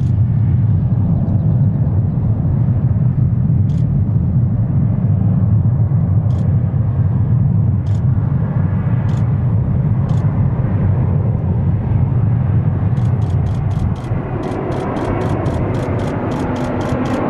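Airbus A380's four turbofan engines making a steady low rumble on final approach. About fourteen seconds in, the rumble eases and a higher noise rises as the jet reaches the runway. Near the end a fast run of faint ticks runs over it.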